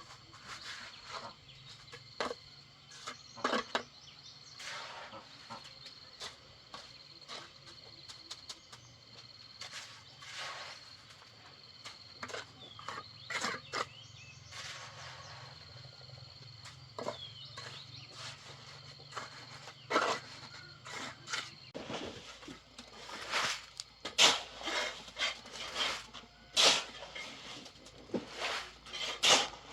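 A cricket trilling steadily on one high note, which stops about two-thirds of the way through. Over it come irregular knocks and scrapes of hands-on work, growing louder and more frequent near the end.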